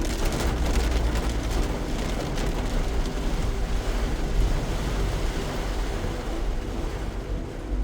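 Steady storm wind buffeting the microphone: a continuous low rumble with a hiss over it.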